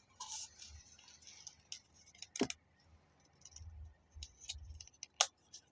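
Small handling sounds of a folding knife being fitted into its snug sheath: a soft rustle, sharp clicks about two and a half and five seconds in, and a few dull low knocks in between.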